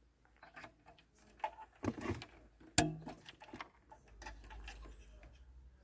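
Plastic wiring-harness connectors being handled and plugged into the back of a car radio: scattered small clicks and rattles, with one sharp click about three seconds in as a plug snaps home.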